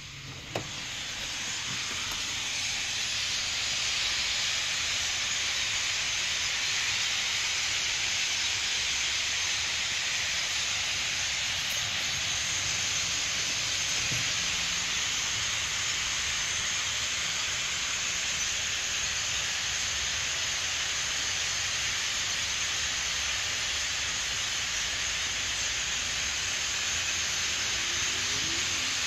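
A large flock of European starlings flying over, their massed calls blending into one dense, even hissing rush that swells over the first few seconds and then holds steady.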